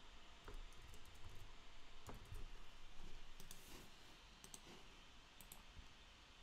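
Faint, scattered clicks of typing on a computer keyboard and clicking a mouse.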